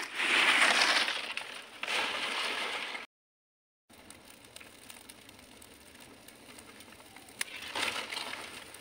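Dry palmyra palm fronds rustling and crunching as they are heaped onto a small fire, then faint crackling of the burning fronds, with another short rustle near the end. The sound drops out completely for under a second about three seconds in.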